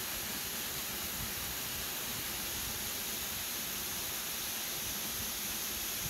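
A waterfall's falling water making a steady, even rush.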